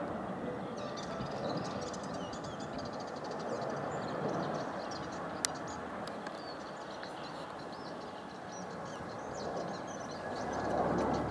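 Distant steady roar of an Airbus A320-family jet airliner's engines as it rolls out along the runway after landing, with birds twittering faintly over it and a single sharp click about halfway through.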